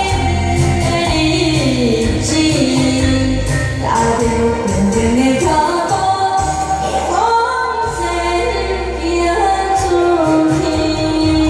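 A girl singing a pop song into a handheld microphone over a recorded backing track with a steady bass line; her voice glides between long held notes.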